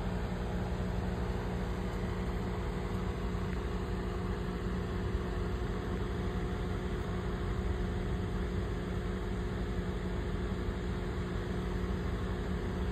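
Steady hum and hiss of running aquarium equipment, an air pump feeding a bubbling air stone, unchanging throughout.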